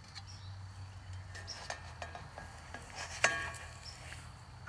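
Spatula scraping and clicking against a cast iron skillet as pizza dough is lifted off the hot pan to check its underside. One sharper clack rings about three seconds in.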